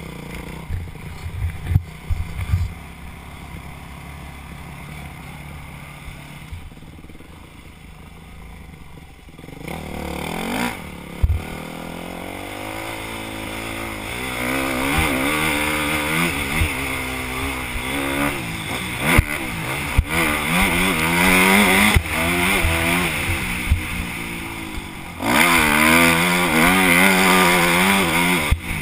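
Yamaha YZ250F's four-stroke single-cylinder engine heard from on board: low and uneven for the first ten seconds with a few sharp knocks, then revving up and dropping back again and again as the bike is ridden along a dirt trail, loudest near the end.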